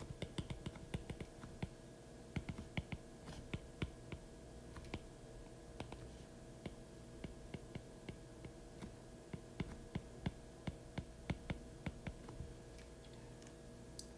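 Stylus tip tapping and clicking on a tablet's glass screen during handwriting: a faint, quick, irregular run of clicks that thins out near the end, over a faint steady hum.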